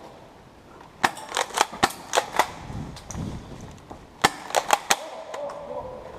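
Airsoft electric guns (AEGs) firing two quick strings of sharp shots, about six and then about five, a couple of seconds apart.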